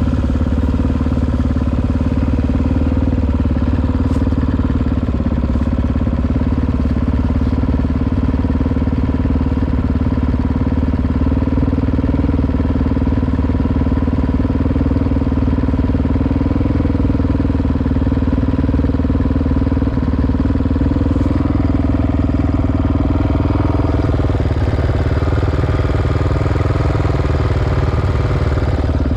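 Honda XR650R's big single-cylinder four-stroke engine running steadily at low revs, near idle, with its note shifting a little near the end.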